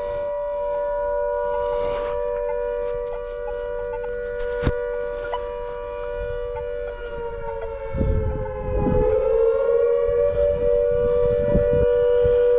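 Civil defence air raid siren sounding two steady tones held together, dipping slightly in pitch a little over halfway through and coming back up, louder after the dip. A sharp click near the middle and a brief low rumble come over it.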